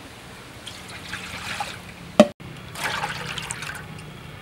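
Water poured from a bowl into a large steel wok, splashing in two spells. Between them comes a sharp knock, the loudest sound, then the sound breaks off for a moment.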